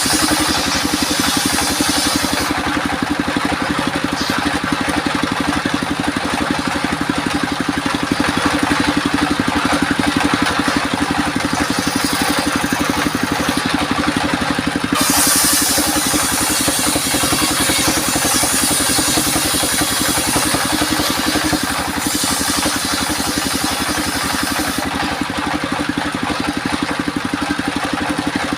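Homemade engine-driven circular sawmill running steadily. A high hiss rises over the machine's hum in several long stretches as the blade cuts through albasia (sengon) wood.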